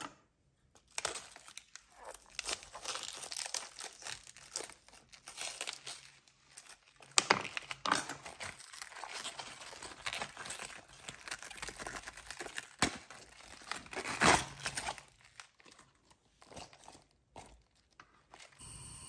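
Leaves being peeled by hand off a raw head of young cabbage: crisp rustling and crackling of the leaves, with a few louder cracks about seven seconds in and again near fourteen seconds as leaves break away.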